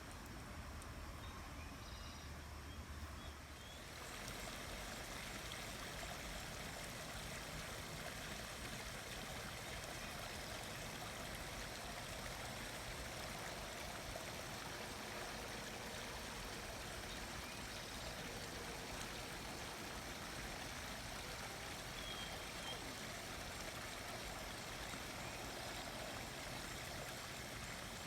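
Steady rushing noise with no clear events, at a low level. For about the first four seconds there is a low hum under it; then the rushing becomes a little louder and stays even.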